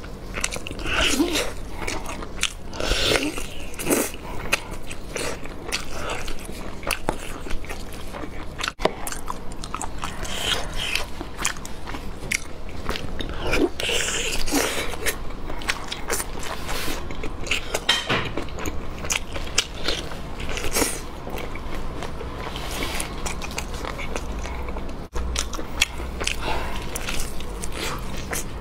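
Close-miked eating: biting into, tearing and chewing braised lamb leg meat, a continuous run of short sharp bites and chewing sounds.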